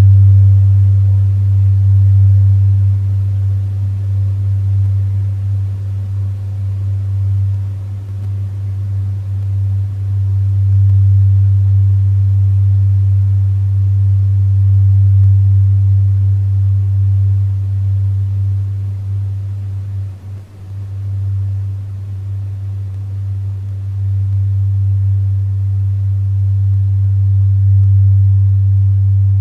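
Low, steady synthesized drone from a procedural p5.js sound generator driven by a pixel-sorting algorithm. Its level swells and eases slowly and dips briefly about twenty seconds in.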